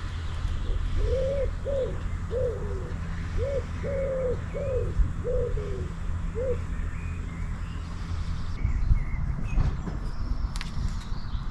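A pigeon cooing: a run of about nine low hooting notes over the first six seconds or so, over a steady low rumble. A few light knocks follow near the end.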